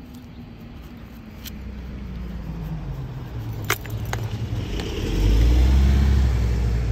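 A motor vehicle driving by on the street: a low engine rumble that grows louder, loudest from about five seconds in. A few light, sharp metallic clicks sound in the first half.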